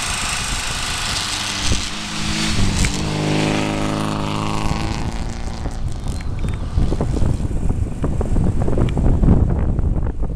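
A racing car engine at full throttle passes by, its pitch dropping as it goes past; uneven low rumbling and crackle follow.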